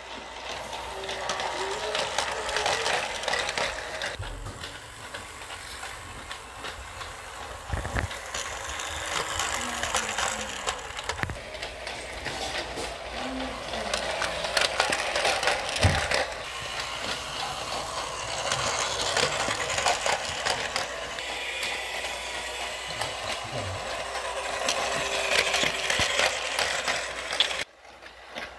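Motorized Aida Toys plastic subway train running on plastic track: a steady rattling whirr of its small motor, gears and wheels, getting louder and softer as it comes and goes, cutting off suddenly near the end.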